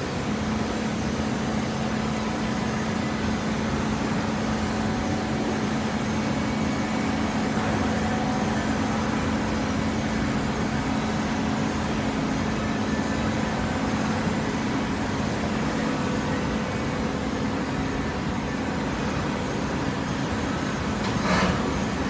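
Horizontal hydraulic baler running, its motor and pump giving a steady mechanical hum under a constant machine noise. A short, louder burst of noise comes about a second before the end.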